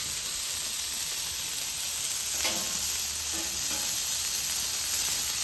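Balls of ground beef frying on a Camp Chef flat-top griddle heated to about 450 degrees: a steady sizzling hiss.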